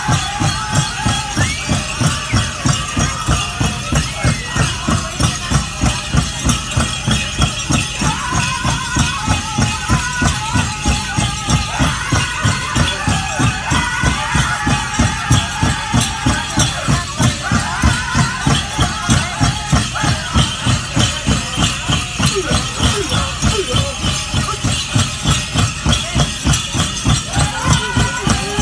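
Powwow drum group playing a men's chicken dance song: a big drum struck in a steady, fast, even beat under the singers' high chanting. The dancers' bells jingle along with it.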